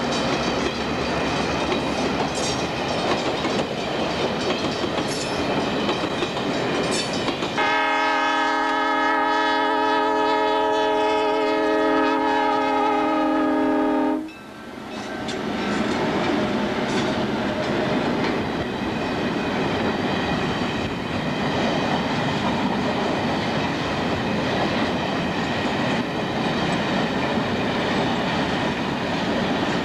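Freight train hauled by EMD diesel locomotives rolling past close by. About seven seconds in, a locomotive horn sounds one long steady chord for the grade crossing. It lasts some six seconds and cuts off suddenly, and the cars keep rolling past.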